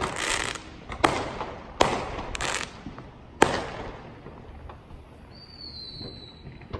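Fireworks going off: about five sharp bangs in the first three and a half seconds, one followed by crackling, then a quieter stretch. A short, high, slightly falling whistle comes near the end.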